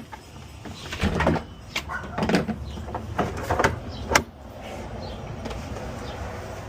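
A Milwaukee Packout plastic tool case being handled and checked over: a string of clicks and knocks over the first four seconds, then only a steady background hiss.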